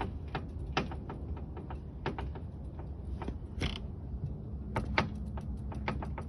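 Steering rack and pinion of a 2015 Mercedes-Benz S550 knocking as the steering wheel is worked: an irregular run of sharp clicks and knocks, a few a second, over a steady low hum. This is the bad noise traced to the rack, knocking low down under the engine.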